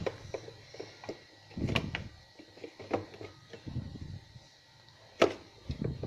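Irregular knocks, clicks and low thuds of a plastic blender jar being handled on its base, with a sharp click about five seconds in. The blender motor is not running.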